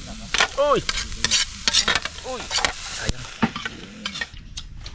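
Plastic ladle scraping and scooping cooked rice out of a hot metal wok, in quick repeated strokes, a few of them giving a short squeak, over a faint sizzle.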